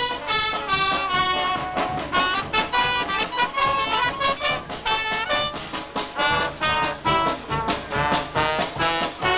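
Carnival street band playing a lively tune on trumpets and other brass over a steady, regular beat.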